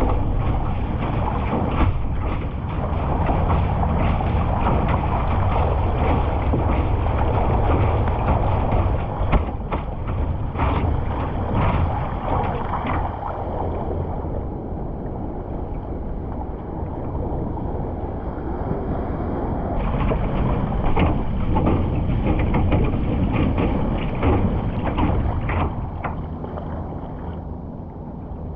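Water rushing and splashing along a sea kayak's hull as it surfs a small wave, easing about halfway through. After that comes the splash of paddle blades dipping in with each stroke.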